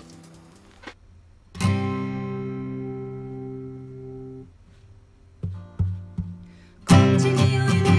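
A guitar strums one chord, which rings out and fades. A few plucked notes follow, and then the full song comes in loudly near the end.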